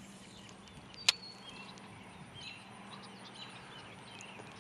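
Quiet outdoor ambience with faint, short bird chirps, broken by a single sharp click about a second in.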